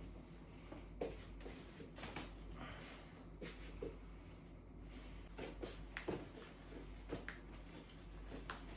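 Faint, scattered soft clicks and knocks of hands and bodies shifting on a treatment table during a chiropractic adjustment, over a low steady hum.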